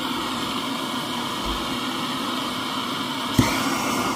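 Bernzomatic MAP-Pro torch flame hissing steadily as it heats silver shot in a ceramic crucible. A little over three seconds in, a second hand torch lights with a sharp click, and the combined hiss gets louder and brighter.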